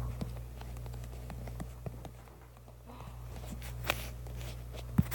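Irregular light taps of fingers typing on a phone's touchscreen, over a steady low hum.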